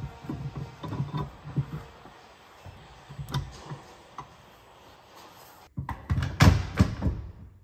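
Light metal clinks and knocks as a chrome tow ball is wound onto the tow-bar hitch, then, after a short pause, several heavy clunks near the end as a Yakima FoldClick 2 hitch-mounted bike rack is set onto the tow ball.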